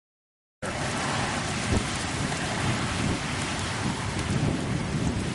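Rain falling during a severe thunderstorm, a steady hiss with a low rumble underneath. It starts abruptly about half a second in, after a moment of silence.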